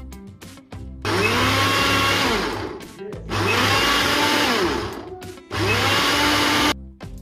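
Electric mixer grinder run in three short pulses, grinding soaked urad dal. Each pulse is a loud whirr of a second and a half or so, rising in pitch as the motor spins up and falling as it stops.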